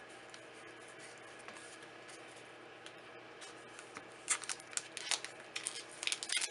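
Magic: The Gathering booster pack and cards being handled: quick, crisp crackling rustles start about four seconds in and grow louder, after a faint steady room hum.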